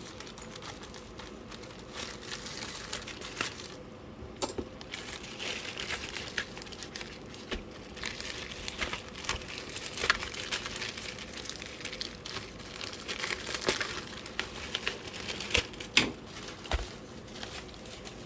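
A parcel's packaging being handled and opened: irregular crinkling and rustling with many sharp snaps and rips, the loudest about ten and sixteen seconds in.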